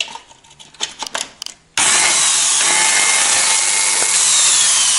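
Partly disassembled Interskol angle grinder: a few clicks as it is plugged in, then its motor starts abruptly about two seconds in and runs loudly. It sparks and runs at low speed, which the owner puts down to a shorted motor winding.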